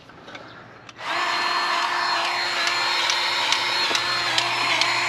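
Power tool motor starts about a second in and runs steadily with a high whine.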